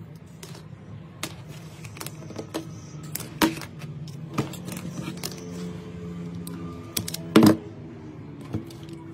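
Insulated hook-up wire being handled, cut and stripped: scattered light clicks and taps, with two louder snaps about three and a half and seven and a half seconds in. Soft background music runs underneath.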